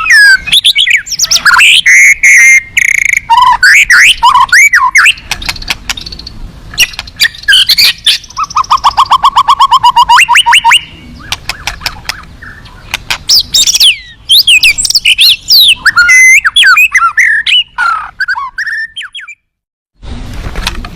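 White-rumped shama (murai batu) singing loudly, a varied song of gliding whistled phrases and rapid sharp chips packed with learned filler phrases. About halfway through comes a fast, even trill of repeated notes. The song cuts off abruptly near the end.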